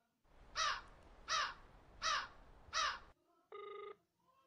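A cawing bird sound effect: four harsh, falling caws about three-quarters of a second apart over a hiss that starts and stops abruptly. Near the end comes one steady beep of a phone's ringback tone as the call rings through.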